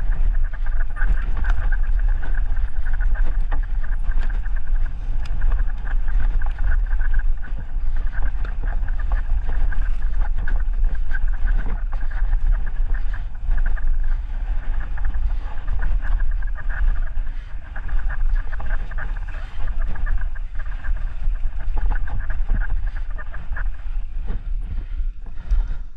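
Mountain bike descending a dirt singletrack: a loud, steady rush of wind on the microphone and tyres rumbling over the trail, with the bike clattering over bumps. The noise dips briefly near the end as the bike reaches a gravel track.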